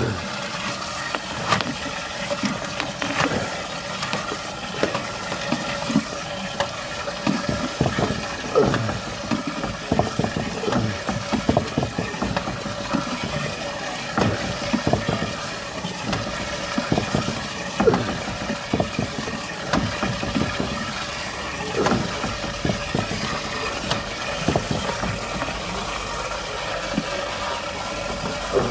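Drain inspection camera being pushed along an underground drain pipe, its head knocking and scraping irregularly against the pipe, over a steady engine hum and running water.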